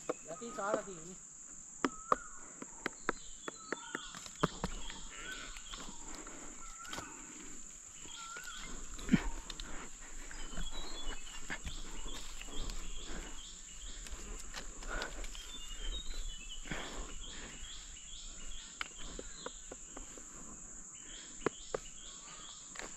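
Insects keep up a steady high-pitched drone, with short bird chirps here and there. Irregular close knocks and rustles run through it.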